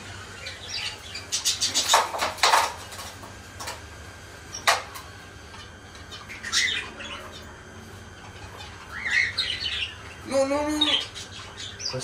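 Cage birds chirping and squawking at intervals, with a quick run of sharp clatters about two seconds in, the loudest sound, and a single sharp knock a little before the fifth second.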